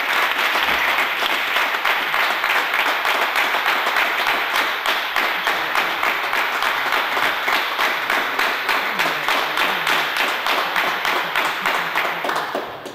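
Spectators applauding, many hands clapping steadily, at the end of a table tennis game. The clapping dies away near the end.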